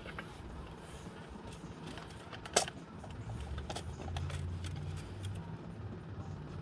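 Light clicks and knocks of hand work on a motorcycle's primary chain and tools, with one sharp clink about two and a half seconds in, over a low steady hum.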